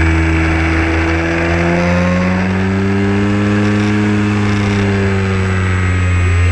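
Model airplane motor and propeller running steadily in flight, heard from a camera on the plane, with a hiss of passing air. The pitch rises slightly about halfway through and then eases back.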